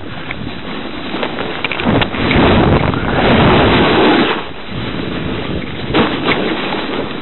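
Wind rushing over the microphone of a moving camera, with the hiss of snowboard edges scraping over snow during a downhill ride. It swells loudest from about two to four seconds in, and a few sharp knocks come about six seconds in.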